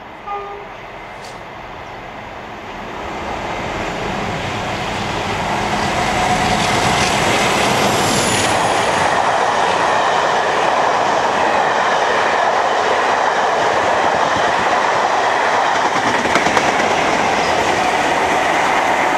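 Class 47 diesel locomotive's Sulzer twin-bank twelve-cylinder engine working hard as it approaches and runs through at speed, growing louder over the first few seconds. Then the steady, loud running noise of the passing coaches' wheels on the rails, with a high whine falling in pitch about eight seconds in.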